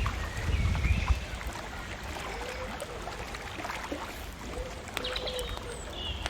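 Outdoor lakeside ambience: a low rumble of water and wind, strongest in the first second, with birds calling throughout. The calls are short high chirps and a few lower whistled notes after the middle, and faint clicks are scattered through.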